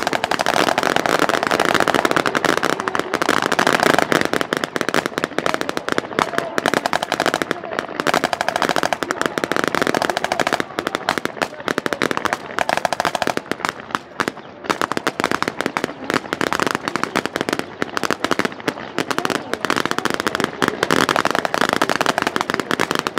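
Blank-firing gunfire from Type 89 rifles and machine guns: many shots overlapping in a continuous rapid crackle, with a brief lull about fourteen seconds in.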